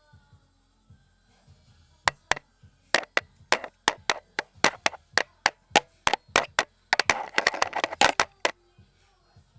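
A run of sharp, clap-like smacks, about three a second, starting about two seconds in and crowding into a fast flurry near the end.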